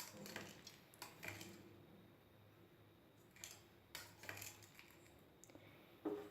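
Spoon stirring palm candy into hot milk in a pot, with a few light clinks and scrapes against the vessel.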